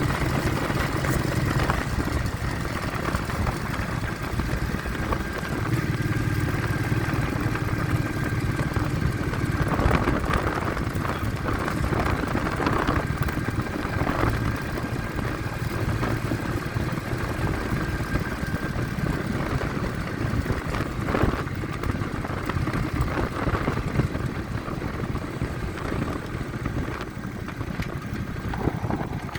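Vehicle engine running steadily on the move, mixed with wind noise buffeting the phone's microphone.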